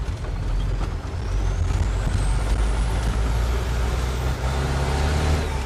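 Truck engine running steadily while driving, heard from inside the cab, with a faint high whine that climbs steadily in pitch over the first few seconds.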